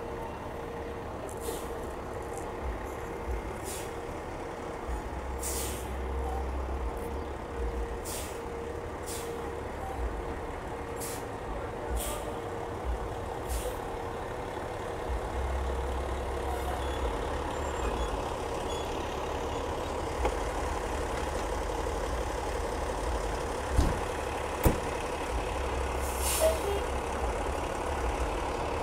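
Fire truck's diesel engine running as the truck manoeuvres, with a backup alarm beeping steadily through the first half. Short sharp air hisses from the air brakes come several times, mostly in the first half and once more near the end.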